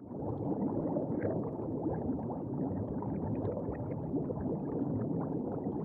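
A steady, muffled bubbling and gurgling wash with faint scattered pops, like an underwater ambience sound effect.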